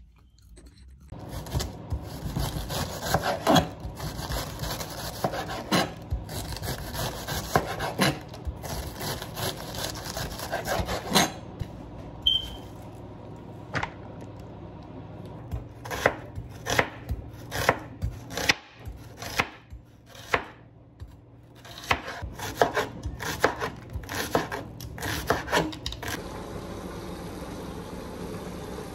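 A long run of irregular knocks and taps on a hard surface, at times two or three a second, over a steady low hum. Near the end the knocking stops and a steady hiss takes over.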